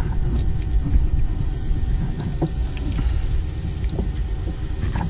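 Steady low background rumble with a constant high hiss, and a few faint clicks and taps as hands work an electrical connector onto the alternator.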